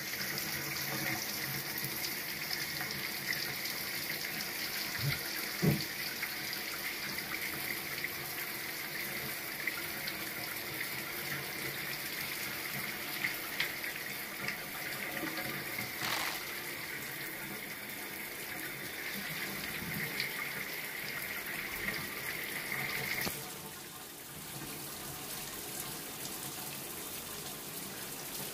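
Water running from a bathtub tap, a steady hiss with a faint whistle. It cuts off fairly suddenly near the end, leaving a quieter rush.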